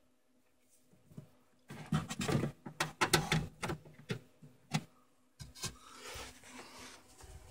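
Clicks, knocks and rustling of cables being handled behind the cabinet, in a dense cluster from about two seconds in to about five seconds. Then a softer scraping rub as the phone is moved.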